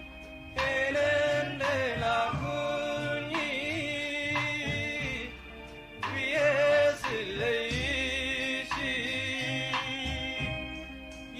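Old Ethiopian popular song: a male singer over band accompaniment with a bass line, the voice dropping out briefly mid-way.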